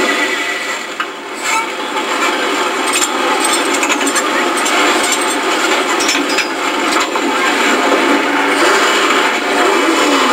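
4x4 mud truck's engine running loudly while the truck sits still, with a short rise and fall in pitch near the end.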